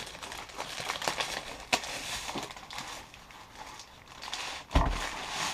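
Black plastic mailer bag crinkling and rustling as it is handled and opened, with a sharp click about a third of the way in and a heavy thump near the end.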